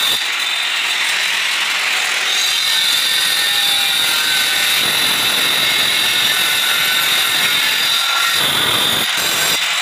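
Handheld angle grinder cutting through a granite slab with a diamond disc: a loud, steady high whine over a rough grinding hiss.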